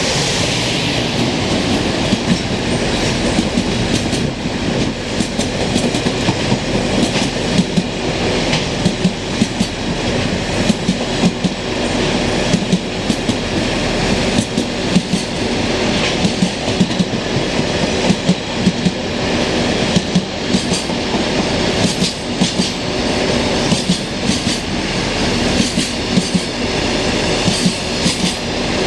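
Freight train passing close by: a JR Freight EF510 electric locomotive goes by at the start, then a long rake of mostly empty Koki container flat wagons rolls past, the wheels clattering over the rail joints in a steady run of sharp clacks.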